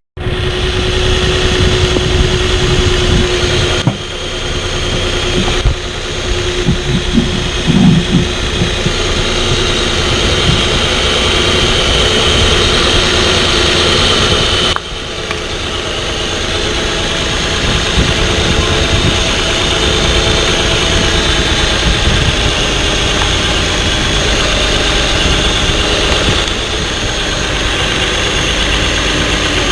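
Pickup's six-cylinder engine idling during a coil-unplug misfire test. Its running note shifts briefly a few times as individual ignition coil connectors are pulled, which is how the faulty ignition coil is found.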